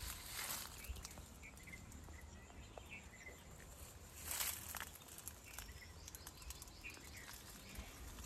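Quiet orchard ambience: leaves rustling in two short swishes, about half a second in and again about four seconds in, over a low wind rumble, with a few faint chirps.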